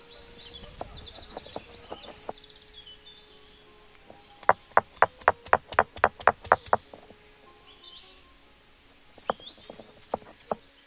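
Stone roller knocking on a flat grinding stone as curry leaves and ginger are crushed. A few scattered knocks come first, then about four and a half seconds in a quick run of sharp clacks, about six a second, and a few more knocks near the end.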